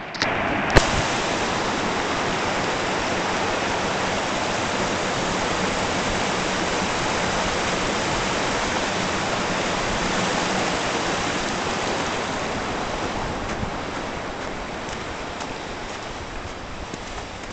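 Small snowmelt mountain stream rushing and splashing over rocks: a steady wash of water that slowly fades over the last few seconds. A single sharp click about a second in.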